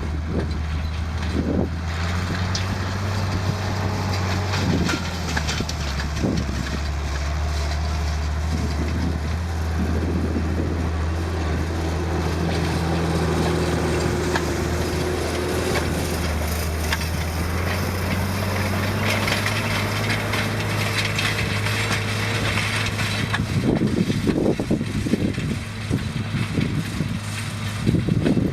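Massey Ferguson 2705 tractor's diesel engine running steadily, with a few knocks and a stretch of rattling near the end.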